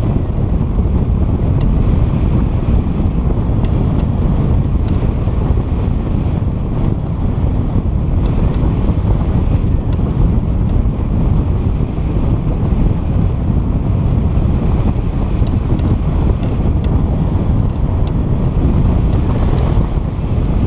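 Steady, loud wind buffeting on the microphone, a low rumbling noise, with a few faint scattered ticks above it.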